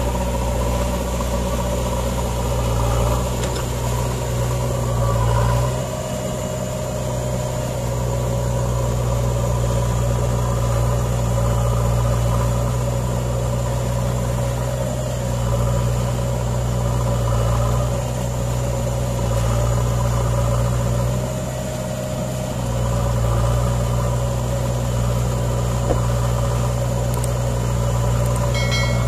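Diesel engines of a JCB backhoe loader and an Eicher tractor running together at close range: a steady low drone that eases off briefly twice as the loader works. Right at the end comes a short electronic chime.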